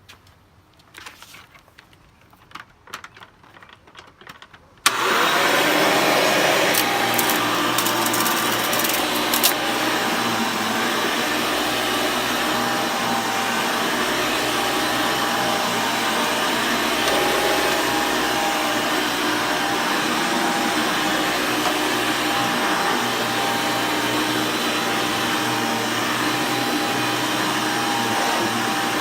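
A few light clicks and knocks, then about five seconds in a vacuum cleaner's motor switches on abruptly and runs with a loud, steady whir.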